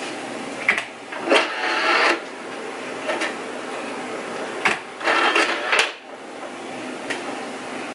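Optical drive tray of a 2002 eMac loading a disc: two short mechanical whirs about four seconds apart, with sharp clicks between and after them, over a steady hiss.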